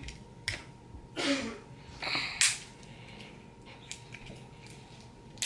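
Handling noises from a small plastic slime container: scattered clicks and two short rustling scrapes, the louder one about two seconds in.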